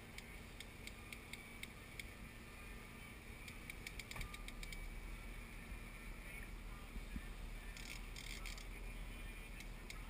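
Fishing reel clicking in two runs of quick ticks as line is cranked in on a heavy fish. A low steady rumble sits under it.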